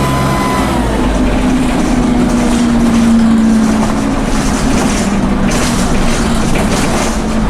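Dennis Dart bus's Cummins diesel engine running under way, with a high turbo whine that fades out in the first second. The engine note then rises and is loudest about three seconds in before easing off, over steady road and body noise.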